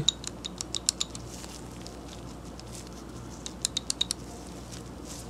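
Light, irregular metallic clicks from the square drive anvil of a SATA 72-tooth 3/8-inch-drive ratchet being wiggled by hand: the anvil rocks in the head because it has some play. The clicks come as a quick flurry in the first second and another about three and a half seconds in.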